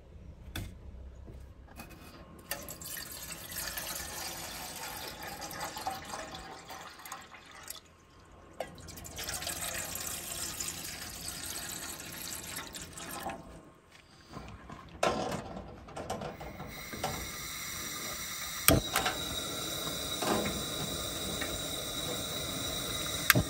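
Water poured from a plastic jug into a metal cookpot, in two long pours. About two-thirds of the way through a steady hiss starts at the camp stove burner, with a few sharp clicks from a long lighter near the end.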